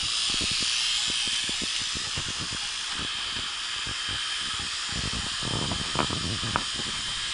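Refrigerant vacuum pump running steadily, pulling a vacuum on a new air-conditioner's line set: an even hiss with an uneven low rumble underneath, slightly louder in the first couple of seconds.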